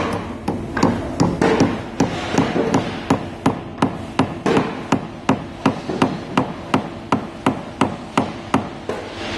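Small hammer tapping an oak spile into a hole in the end grain of a wooden wine barrel: light, even blows about three a second, driving the spile in until it meets resistance and seals the leak.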